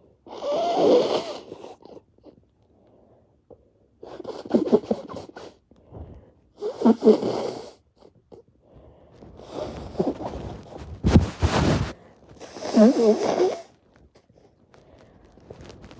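A person repeatedly blowing a congested, snotty nose, about five wet, honking blows of a second or so each, with a loud bump about eleven seconds in.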